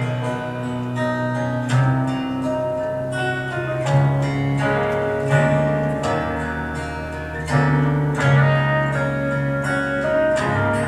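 Instrumental introduction to a gospel song: strummed acoustic guitar playing chords over a sustained low bass line, with no singing yet.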